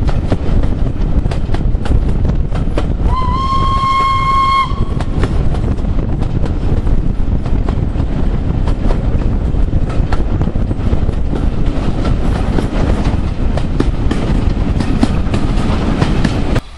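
A steam locomotive's whistle blows once for about a second and a half, over the loud running noise of a steam train heard from a carriage window, with wheels clicking over the rail joints.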